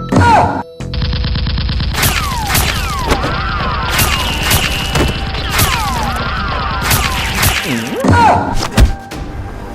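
Rapid automatic gunfire sound effect: one long continuous burst starting about a second in, with whizzing sweeps and sharp hits over it, stopping around seven and a half seconds. A few heavy thuds follow near the end.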